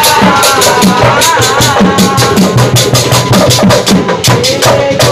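Obrog sahur street percussion: drums and other hand percussion beat a fast, steady rhythm while a group of young men sing along in a football-supporter-style chant.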